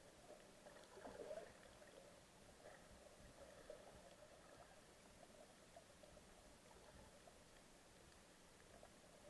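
Near silence: faint underwater noise picked up by a submerged camera over a coral reef, with no clear single event.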